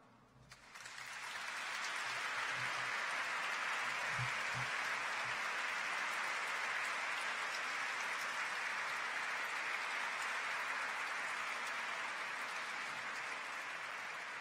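Audience applauding, building up over the first second or two, holding steady, then easing off slightly near the end.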